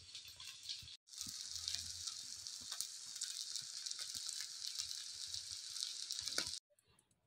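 Chicken shami kababs shallow-frying in hot oil in a pan: a steady sizzle with small crackles, starting about a second in and cutting off suddenly near the end.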